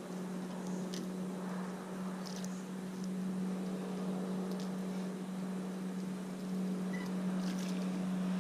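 A steady low hum holding one pitch, with a few faint short ticks over it.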